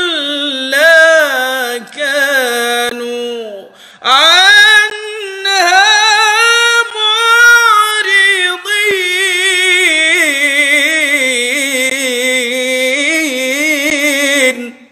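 A man's voice reciting the Quran in melodic tajweed style, drawing the words out into long ornamented notes. There is a short pause for breath about four seconds in, and a long wavering held note near the end that stops abruptly.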